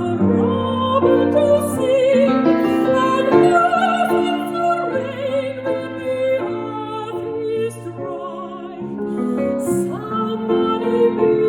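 Slow classical-style music: a melody with a wavering vibrato over held accompanying notes, changing chord every second or so.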